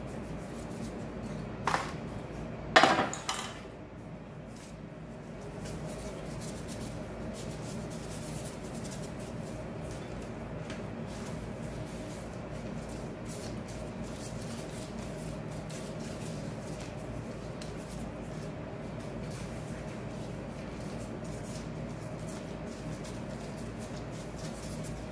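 A metal baking tray clanks twice against the counter, the second knock louder, followed by faint small clicks and handling sounds of dough being worked over a steady low hum.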